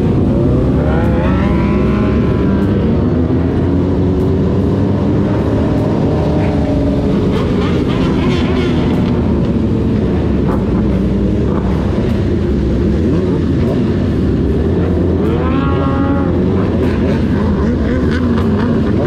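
Motorcycle engines running in a group ride: a dense, steady low rumble with engine notes gliding up and down several times as bikes rev and change speed.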